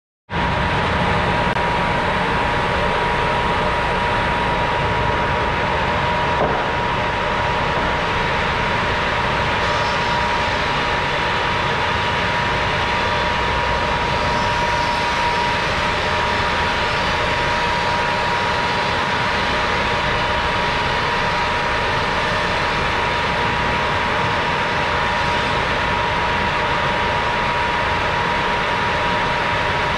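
Woodworking thickness planer running, its spinning cutter head and motor giving a loud, steady noise with a constant high whine. A brief knock comes about six seconds in.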